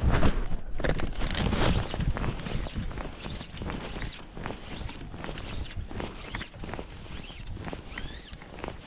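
Close scraping, rustling and clicking handling noise as an angler plays a hooked fish on a fly line. Over it comes a string of short high chirps that rise and fall, about one a second.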